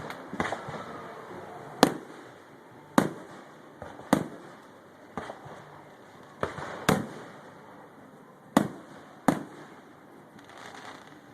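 Fireworks show: about nine sharp bangs of bursting aerial shells at irregular intervals, each with a short echoing tail, and a fainter crackle near the end.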